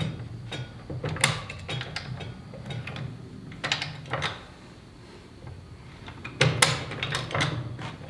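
High-lift farm jack being let down stroke by stroke under the weight of a sawmill: sharp metal clacks as its climbing pins catch on the perforated steel bar, in irregular groups with a busier run of clicks near the end.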